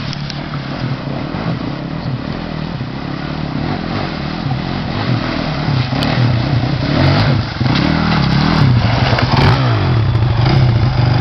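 Dirt bike engine revving up and down as it is ridden through a deep mud hole. It gets louder about halfway through, with scattered sharp clicks.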